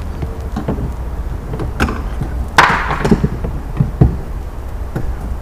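Plastic interior trim panel on a C5 Corvette being pried off its clips with a pry tool: a run of knocks and clicks, the loudest about two and a half seconds in with a short scraping rasp, over a steady low rumble.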